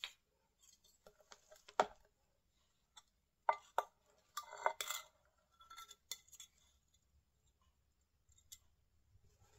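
A wet paint-poured tile being handled with a metal palette knife: scattered clinks, taps and short scrapes of the knife and tile against the board. The sharpest knocks come about two seconds in and again around three and a half seconds.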